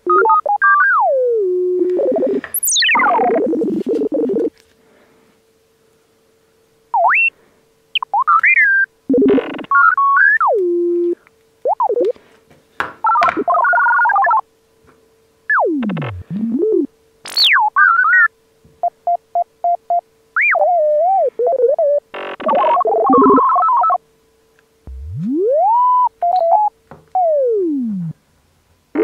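Synthesized cartoon-style sound effects: sliding whistles that rise and fall in pitch, quick runs of short beeps and buzzy bursts, one after another with brief silences between, over a faint steady tone.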